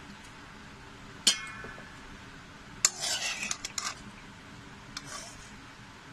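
Metal spoon clinking and scraping against a metal kadhai while blanched broccoli is scooped out of its water. There is a sharp ringing clink about a second in, another clink near the middle followed by about a second of scraping, and a lighter knock near the end.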